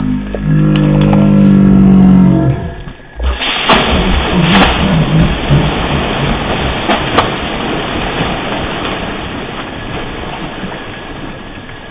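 A man's long, loud held yell, then about three seconds in a sudden splash as he drops into the muddy rice-paddy water, followed by splashing and thrashing in the water that slowly fades.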